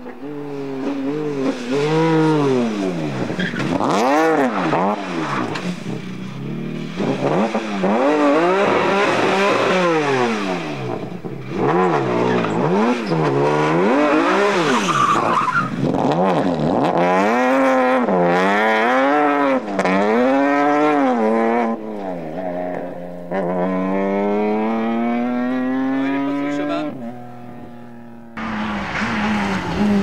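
Rally car engines at full throttle, revving hard and dropping again and again through gear changes and lift-offs as the cars brake and accelerate through the corners. Near the end one long rising rev is held as a car accelerates away.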